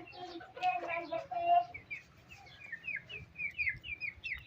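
Small birds chirping: a quick run of short, falling chirps, about four a second, through the second half. Before it comes a brief pitched call or voice.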